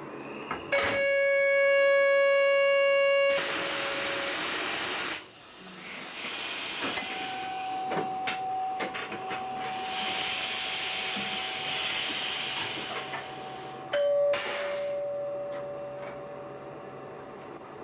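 Train cab warning signals and compressed air. A click starts a buzzing tone that lasts about two and a half seconds, and a loud hiss of released air follows. A steady, higher single-pitched beep then sounds for about seven seconds, and near the end a short tone with a brief hiss comes once more.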